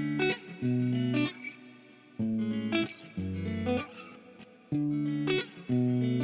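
Background music: electric guitar playing a repeated pattern of short chords, with gaps between them.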